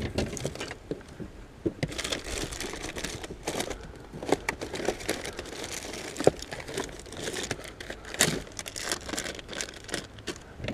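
Close, irregular crinkling and rustling with small crackles: handling noise while fishing tackle is changed between rigs.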